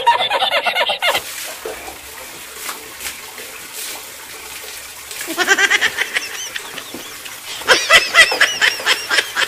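A man's high wheezing laugh for about a second. Then two bursts of rapid, repeated honk-like cries, one about five seconds in and one near the end.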